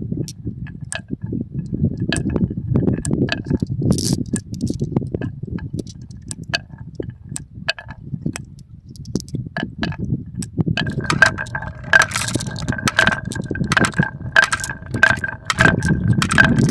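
Marbles rolling down a wooden HABA marble run: a continuous low rolling rumble with many sharp clacks as they hit the track pieces. From about eleven seconds in, rapid repeated ringing clinks join the rumble.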